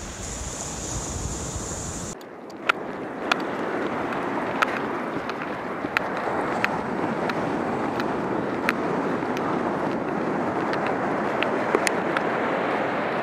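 Ocean surf and wind on the microphone. About two seconds in, a low rumble gives way to an even hiss with a sharp tick roughly every two-thirds of a second.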